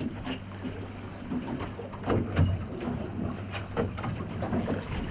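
A fast fishing boat under way on choppy sea: a steady low engine hum, with irregular splashes and knocks as the hull meets the waves.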